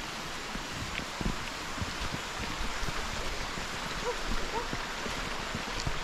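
Footsteps of hikers in rubber boots on a wet, rocky rainforest trail, irregular soft thumps over a steady hiss of forest background, with two short faint chirps about four seconds in.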